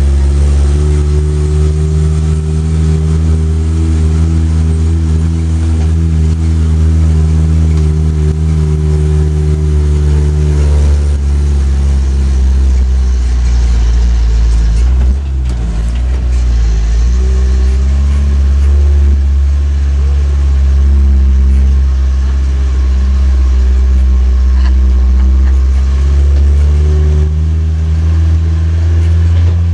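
A tourist road train's engine running under way, a loud steady drone. About halfway through, the note shifts and briefly dips, then it settles into a steady run again.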